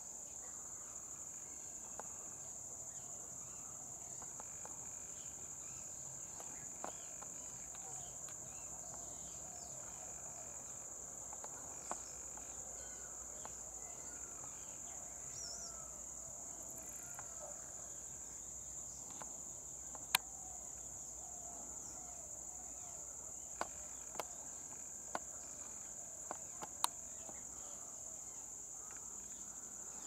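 A steady, unbroken high-pitched insect drone. A few sharp clicks come in the second half, with faint short wavering notes lower down.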